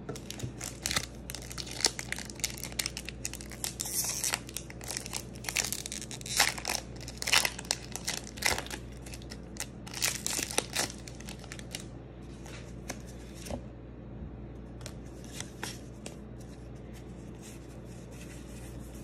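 Foil wrapper of a Pokémon Obsidian Flames booster pack being crinkled and torn open by hand: a dense run of sharp crackles for about twelve seconds, then fewer, softer crackles.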